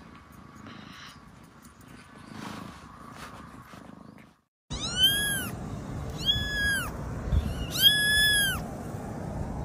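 Kitten meowing three times, high-pitched calls that each rise and then fall, the third held longest.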